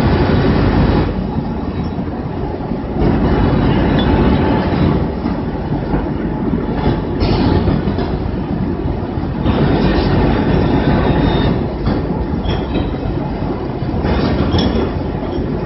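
Two-axis automated fettling grinder working on a steel casting: a loud, continuous grinding noise whose strength shifts every one to three seconds.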